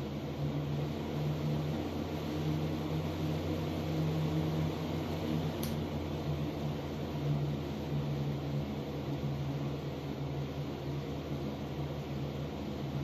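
Box fan running steadily, its blades fitted with EVA foam leading-edge serrations and feather-like trailing-edge cutouts. It makes a low hum under a broad rush of air. A single click comes about halfway through.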